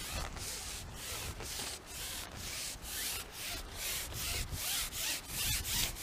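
Repeated rubbing or rasping strokes, about two to three a second, growing louder toward the end.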